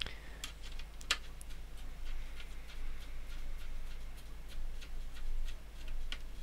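Small screwdriver turning a screw into a plastic electronics housing, giving faint irregular clicks and ticks, one sharper about a second in, over a low steady hum.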